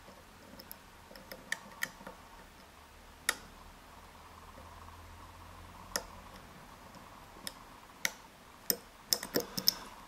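Dimple pick and tension wrench working the pins of an Abus EC750 Extra Classe 6-pin dimple cylinder: small, sharp metallic clicks at irregular intervals, with a quick flurry of them near the end.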